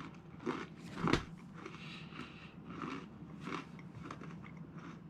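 A person chewing a butter toffee pretzel: a loud crunch about a second in, then steady crunching at about two chews a second.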